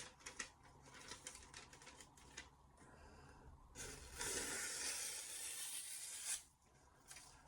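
Freshly sharpened Dalstrong Shogun Series X chef's knife slicing through paper to test its edge: a steady rasping hiss of about two and a half seconds, starting about four seconds in, after a few faint ticks.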